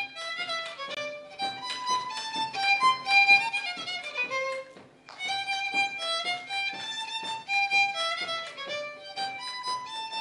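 Folk fiddle playing a quick dance tune as an instrumental introduction, over a bass string instrument that keeps a steady beat. The music breaks off briefly about five seconds in, then the tune starts again.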